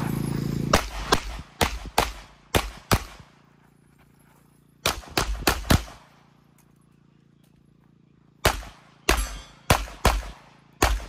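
Handgun shots fired in quick strings at a shooting match: about six, a pause, five more in rapid succession, another pause, then about six more, each shot followed by a short echo.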